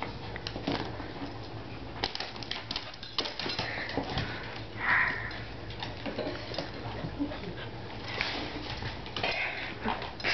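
A Pembroke Welsh corgi snuffling and chewing at a fabric bra, sniffing and snorting through its nose, with scattered clicks and scuffs of its claws on a hardwood floor as it tugs on the bra.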